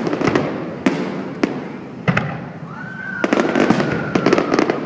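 Fireworks going off: separate sharp bangs in the first two seconds, then a dense run of crackling pops, with a high whistling tone held for about two seconds midway.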